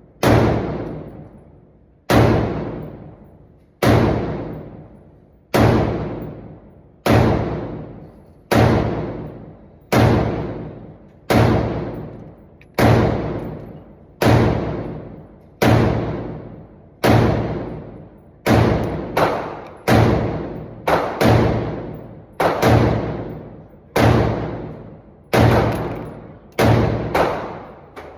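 Deep booming bass hits, one about every one and a half seconds, each ringing out at a steady low pitch and fading; over the last ten seconds they come in quick pairs. Typical of the 808 bass in a rap beat.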